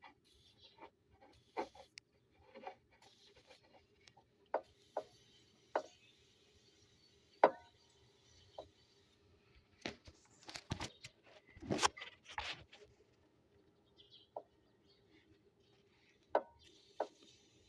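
Scattered clicks, taps and knocks of hand work on a machine's fuse holder, with faint hissing at times. The loudest knock comes about seven seconds in, and a cluster of clatter follows around ten to twelve seconds in.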